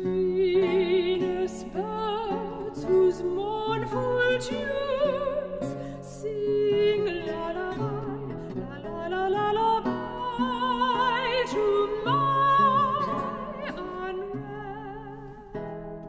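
Soprano singing with a wide vibrato over a Renaissance lute's plucked accompaniment; the voice comes in right at the start, after the lute alone.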